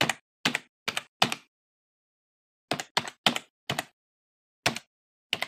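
Computer keyboard keystrokes clicking in short irregular runs, with complete silence between them: a typing sound effect for text being typed out at a terminal prompt.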